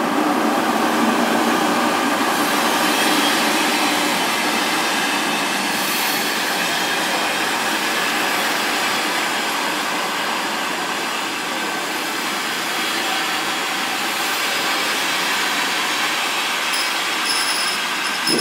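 Express passenger train hauled by an EP2K electric locomotive rolling past as it pulls into a station: a steady rumble and hiss of coach wheels on the rails, easing a little after the first few seconds.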